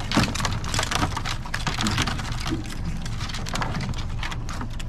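Dense, irregular clicking and crackling from live, wet blue swimmer crabs scrabbling in a plastic crab basket, over a low steady rumble.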